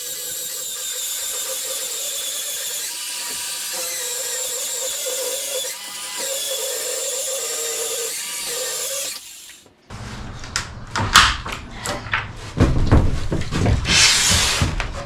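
Circular saw cutting through floor underlayment along a clamped straight edge, running steadily with a wavering whine for about nine seconds before it stops suddenly. A run of knocks and clatter follows.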